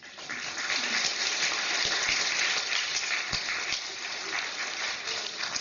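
Audience applauding, starting at once as a recited poem ends and thinning out near the end.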